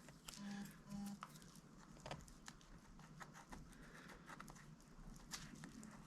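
Faint scattered taps and clicks from handling the freshly repaired Samsung Galaxy Tab A, with two short low tones about half a second and a second in.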